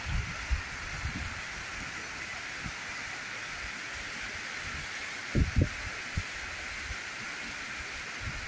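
Heavy rain falling in a steady hiss. Short low thuds sound against the microphone now and then, the loudest two about five and a half seconds in.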